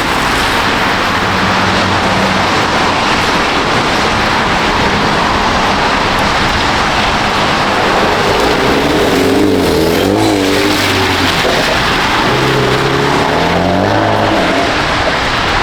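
A car running, heard as a loud, steady rush of noise. About halfway through, a few low tones swing up and down for several seconds.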